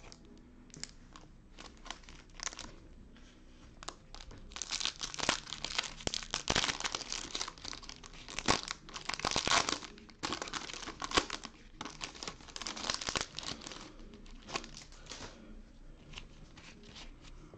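A 2020 Topps Chrome baseball card pack's foil wrapper crinkling and tearing as it is ripped open by hand. A few light rustles and taps come first, and the dense crinkling starts about four seconds in and dies down near the end.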